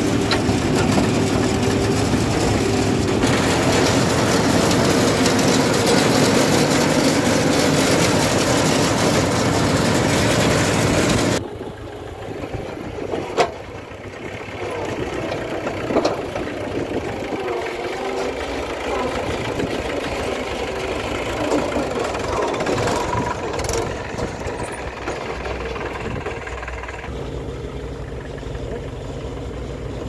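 Mahindra tractor's diesel engine running as it tows a trolley loaded with stone, loud and steady when heard from the driver's seat. About eleven seconds in, the sound cuts suddenly to the same engine heard quieter from outside, with a couple of sharp knocks.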